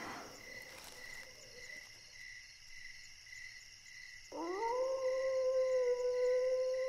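A long canine howl begins about four seconds in, rising quickly and then holding one steady pitch. Under it is a faint, steady pulsing chirp.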